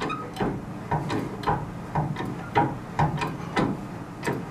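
Wildfire hand-pumped hydraulic bridge jack being raised to lift it off its lock mechanism: a regular series of clacks, about two or three a second.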